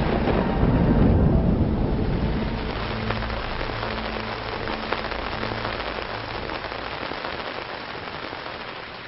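Steady rain, heaviest at first with a low rumble underneath, then slowly fading away.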